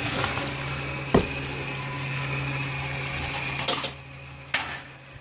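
Rinse water pouring off the end of a gold sluice into a plastic tub, over a steady low motor hum. A single sharp knock sounds about a second in, and the water gets quieter at about four seconds.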